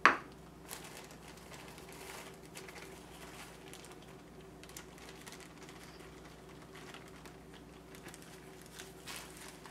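A sharp knock at the very start, then faint, scattered crinkling of a plastic bag of powdered sugar being handled while sugar is scooped out of it.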